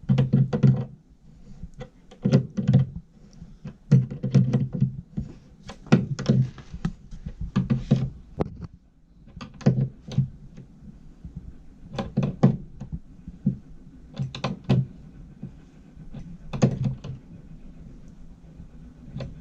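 A length of pipe being fed through behind fitted units, knocking and thunking as it goes. The knocks come in short clusters every couple of seconds and stop near the end.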